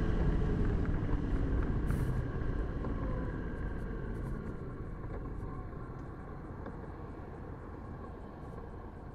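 Motorcycle slowing to a stop: wind noise and engine and road rumble fade steadily as the bike pulls over, leaving the engine idling low.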